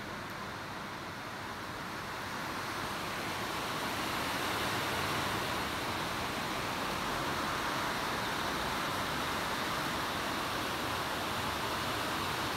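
Steady rushing background noise with no distinct events, growing a little louder about three seconds in.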